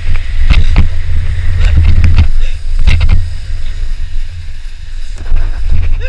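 Snow tube sliding fast down a groomed snow lane: a heavy rumble of the tube running over the snow and air rushing past the camera microphone, broken by repeated knocks and bumps.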